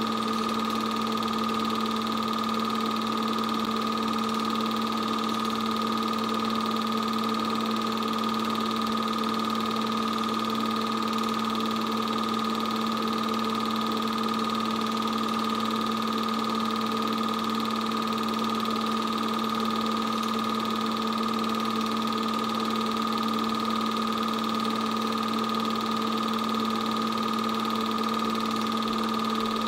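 8mm film projector running: a steady mechanical hum of motor and fan with a few constant pitched tones, unchanging throughout.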